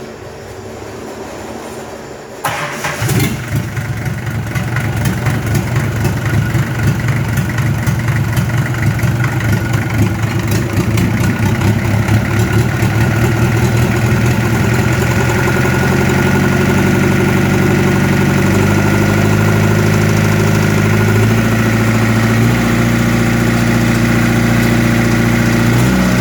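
Mitsubishi PS100 diesel engine starting about two and a half seconds in, then running. In the second half its speed steps up and down several times as its newly fitted automatic throttle is tested.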